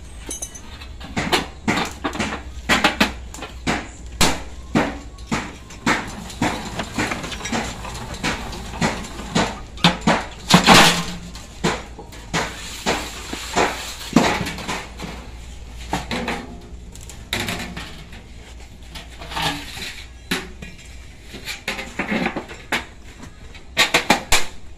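Thin sheet metal clanking and rattling irregularly as it is handled and passed through a manual three-roll bending machine to form an insulation jacket, with a louder, longer rattle about ten seconds in and a quick cluster of clanks near the end.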